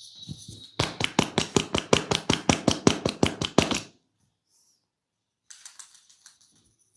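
A masseur's hands striking the body in rapid, even percussive massage strokes, about seven a second for about three seconds.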